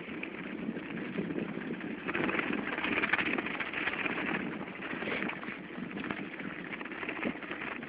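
Continuous crunching and scraping on packed snow from movement along a snowy road, a little louder about two to three seconds in.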